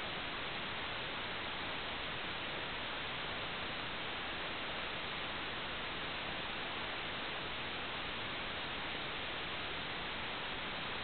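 Steady, even static hiss that does not change, with no other sound in it.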